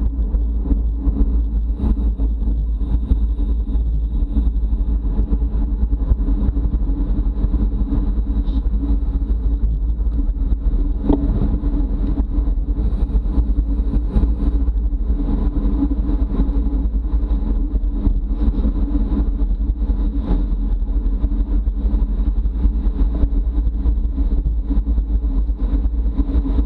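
Wind rushing over the microphone of a camera riding in a bicycle race at speed: a steady, loud low rumble with no letup.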